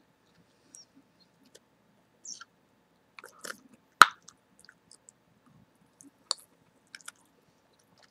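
Close-miked chewing gum: scattered soft wet clicks and smacks as the mouth works the gum. About four seconds in there is one loud, sharp pop from the gum.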